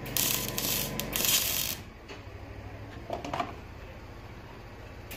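Welding arc crackling on a stainless-steel exhaust pipe for about two seconds, then stopping, leaving a faint low hum.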